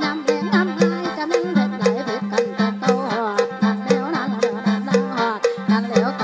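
Instrumental Isan mor lam music: a steady low drone under a short repeating note, with a gliding melody over it and a quick, even percussion beat.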